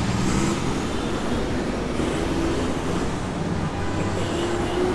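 Busy city road traffic: buses and cars running close by, a steady engine rumble.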